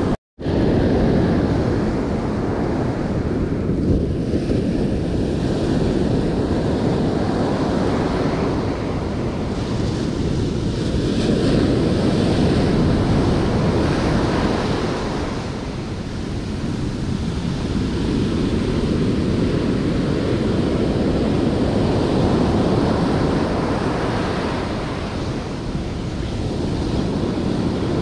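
Ocean surf breaking and washing up a sandy beach, swelling and easing every several seconds, with wind buffeting the microphone. The sound drops out briefly just after the start.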